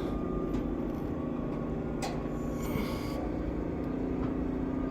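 A steady low mechanical hum, like a small motor or fan running, with a couple of faint clicks.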